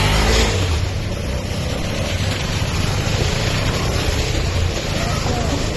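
KTM 250 Adventure's single-cylinder engine running steadily as the motorcycle is ridden, a low rumble under a rushing noise.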